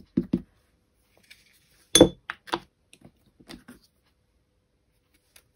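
A sharp click with a brief ring about two seconds in, then several lighter clicks and taps: a plastic stamp ink pad case being handled and set down, along with an acrylic stamp block.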